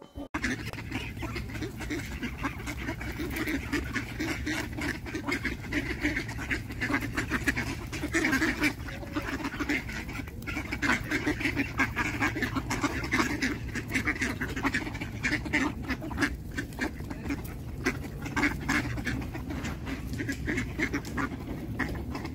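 A flock of mallard ducks quacking without pause, many calls overlapping.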